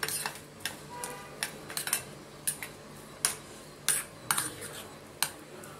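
Spoon stirring a thick jackfruit and semolina batter in a ceramic bowl, knocking and scraping against the bowl in irregular clicks.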